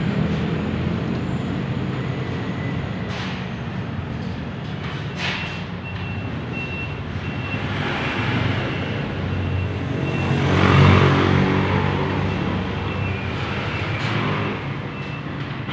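A motor vehicle engine running steadily, swelling louder about ten seconds in. A thin, high beep comes and goes in short pulses through the second half, and a few sharp clicks sound early on.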